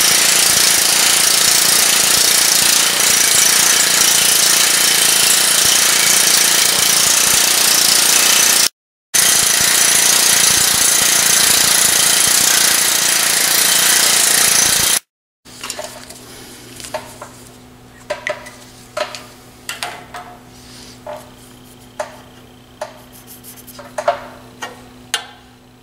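A power grinding tool takes the ears off a thin aluminum plate held in locking pliers: a loud, steady, hissy grinding noise, broken twice by sudden cuts. After about 15 seconds it gives way to a steady low hum with light ticks and scratches of a marker on the aluminum.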